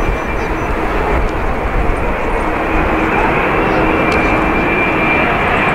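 A Boeing 787-9 airliner on final approach, its Rolls-Royce Trent 1000 engines giving a steady jet rumble with a thin high whine over it.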